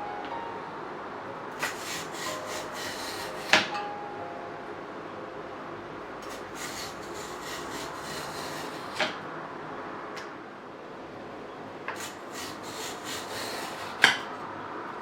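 Mussel shells being handled: steady scraping and rubbing, with three sharp clacks about three and a half, nine and fourteen seconds in.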